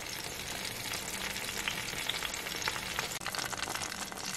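Garlic cloves, black peppercorns and whole cloves frying in oil in a stainless steel pan: a steady sizzle with small crackles throughout.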